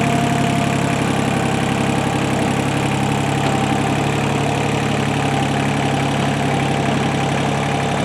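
Tractor engine running steadily at an even speed, a low hum with no revving.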